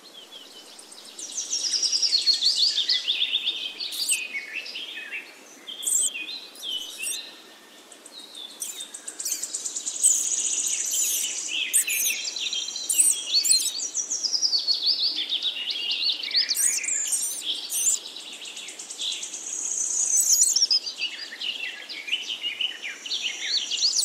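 Several small birds singing and chirping together: a dense, high-pitched twittering of warbling phrases and sharp chip notes, with brief lulls near the start and about eight seconds in.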